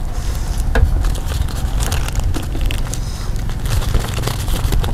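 Eating sounds: chewing, with small crackles and clicks from chopsticks and rice-paper wraps, over a steady low rumble.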